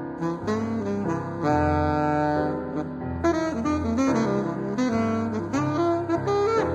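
Jazz saxophone and piano duo playing live, the saxophone running a line of quickly changing notes over low, held piano notes. Heard from a cassette recording.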